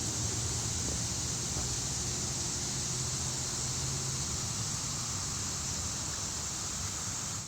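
Steady outdoor background noise with no siren sounding: an even high hiss and a faint low hum underneath.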